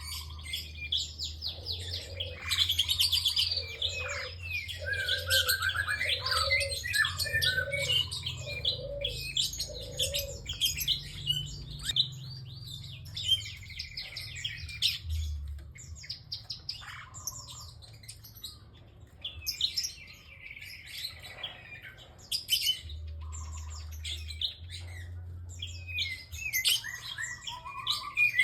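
Prinia (prenjak) singing busily: rapid sharp chirps and trills in quick bursts, with a short run of lower repeated notes in the first half. A steady low hum runs underneath.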